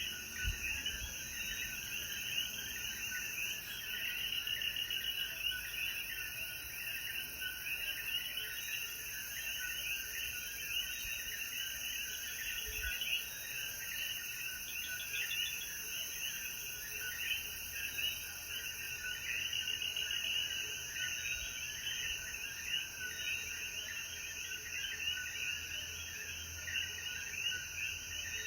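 Dense chorus of coquí frogs, many short chirping calls overlapping without a break, over a steady high insect drone.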